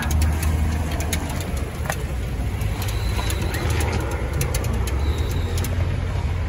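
Toy poodles whining and whimpering excitedly, over a steady low rumble, with light clicks now and then.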